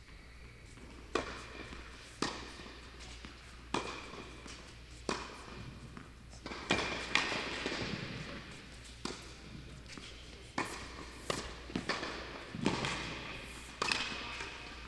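Tennis ball struck by rackets and bouncing on a hard court in a rally, a sharp knock roughly every second.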